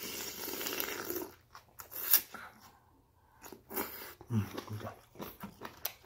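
A person slurping glass noodles from spicy beef soup (yukgaejang) for a little over a second, followed by wet chewing and smacking, with a short sip from a spoon near the middle.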